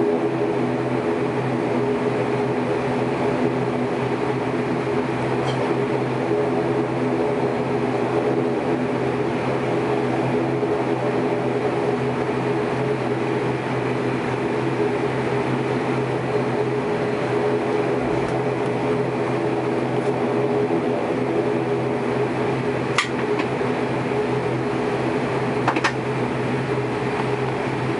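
Steady cabin drone of an ATR 72-600's turboprop engines (Pratt & Whitney PW127M) and propellers at taxi power, a low, even hum with a few steady tones. A couple of small clicks come near the end.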